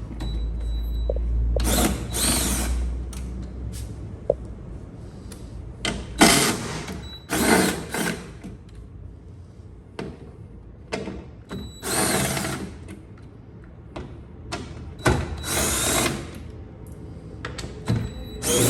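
Power drill running in about six short bursts, its motor speeding up and slowing down each time, while a part is being unfastened from inside a car door.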